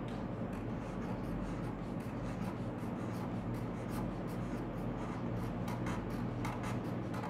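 Black felt-tip permanent marker scratching across paper in short strokes, about two or three a second.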